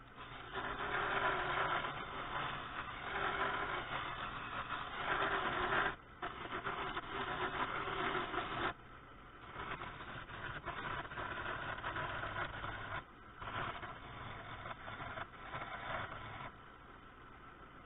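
Wood lathe running with a steady motor hum while a hand turning tool cuts along a spinning ash walking-stick shaft, giving a rough hissing shaving sound in several passes. The cutting is loudest in the first half and breaks off briefly about six, nine and thirteen seconds in.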